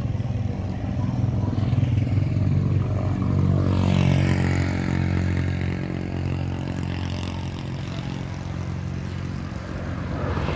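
Vehicle engine running at a steady idle with a low hum, and another vehicle going by about four seconds in.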